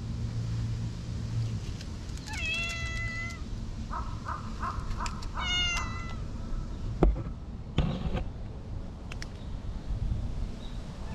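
Brown tabby-and-white cat meowing: a drawn-out meow about two seconds in and a shorter one a few seconds later, with a quick run of short chirps between them. A sharp knock about seven seconds in is the loudest sound.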